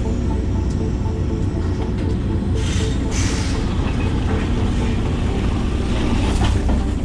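Hitachi 130LCN excavator's diesel engine and hydraulics running steadily under work, with a brief hiss about three seconds in.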